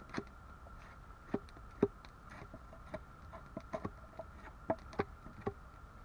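Irregular sharp cracks and light knocks of wood, about ten of them, the loudest a little under two seconds in, over a faint steady high-pitched tone.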